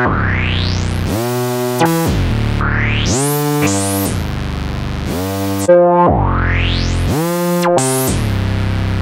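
Synthesizer playing sustained chords over a low bass, with a resonant filter sweeping upward again and again. The chords change about every second or two. It is the J4 sampled emulation of the Roland Jupiter-4 analog synthesizer.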